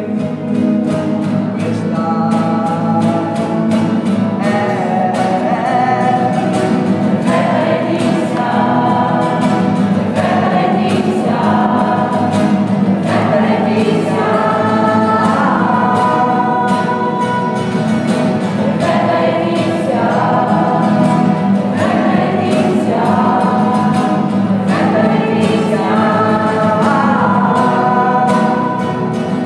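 Background music: a song sung by a choir of voices over instrumental accompaniment with a steady beat.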